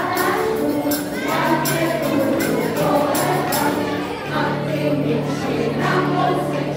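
A group of adults singing a Czech Christmas carol together, accompanied by acoustic guitar and a steady rhythm of jingling hand percussion.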